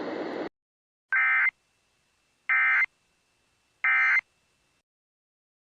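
Emergency Alert System end-of-message signal: three short digital data bursts (SAME header), each under half a second, about a second and a half apart. A background hiss stops abruptly about half a second in, before the first burst.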